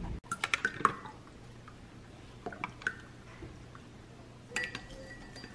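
Light clicks and dripping of liquid into a mug of coffee as a single-serve creamer cup is squeezed out into it, with the clicks bunched in the first second and a few more near the middle.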